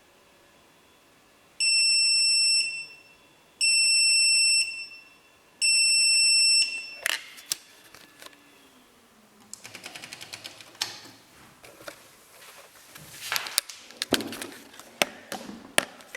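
Bosch MAXX 6 washing machine beeping three times, each a steady high tone about a second long: the end-of-programme signal after a boil wash. A run of sharp clicks and knocks follows from about halfway through.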